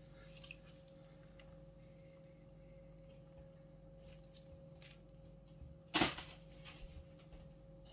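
Quiet kitchen with a steady faint hum while lemon halves are squeezed by hand over a pot of soup, giving a few faint small squelches and ticks. A single sharp knock about six seconds in.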